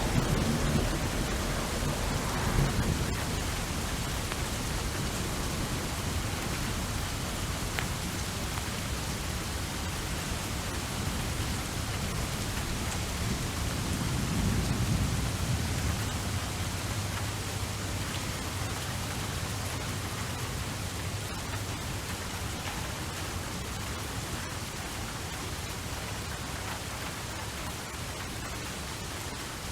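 Steady heavy rain hissing, with low rolling thunder rumbles about two seconds in and again about halfway through.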